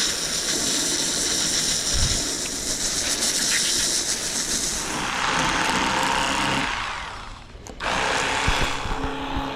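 Electric fillet knife running while cutting fish, its motor note changing as the blades work through the fish; it dips briefly near the end and then runs again.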